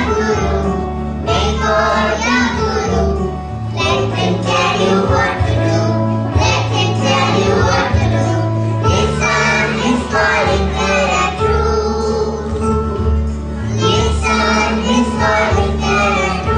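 A group of young children singing together in chorus, with steady low backing music under their voices.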